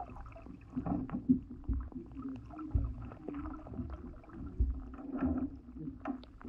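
Kayak being paddled: low knocks of the paddle against the hull at irregular intervals, with a faint wavering hum underneath.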